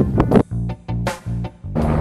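Background music led by guitar and bass: the band plays three short stopped chords with brief silences between them, then comes back in full near the end.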